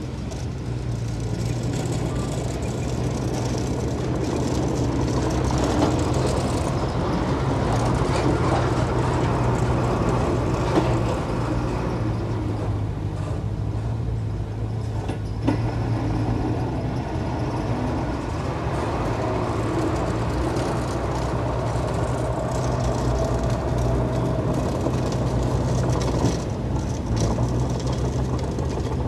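Diesel engine of heavy earthmoving machinery running with a steady drone, with a few sharp clanks, the clearest about halfway through.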